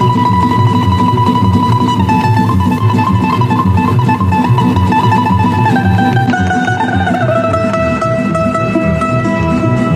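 Tamburica ensemble playing: a high prim melody in long held notes over a plucked rhythmic accompaniment, the melody stepping down to lower notes about six seconds in.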